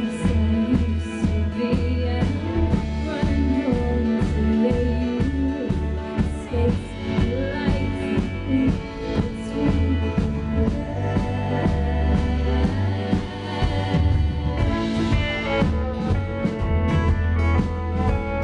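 A live band playing a song on acoustic guitar, electric guitar, cello and drum kit, with a steady drum beat.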